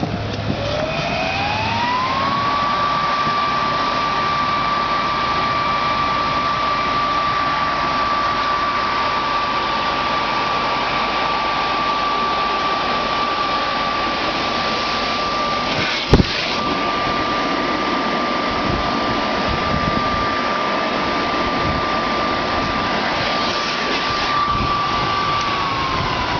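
Electric air blower inflating a water walking ball: the motor spins up with a rising whine, runs steadily with a rushing of air, and begins to wind down near the end. A single sharp click about 16 seconds in.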